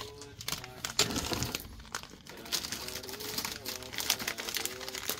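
Plastic instant-noodle packets crinkling and rustling in a run of short, sharp bursts as they are handled.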